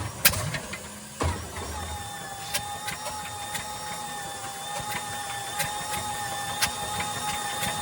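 Allison V-1710 V-12 aircraft engine during a start attempt: two sharp cracks at the start, a low thump about a second in, then a steady whine with scattered clicks and pops, without the engine settling into a run.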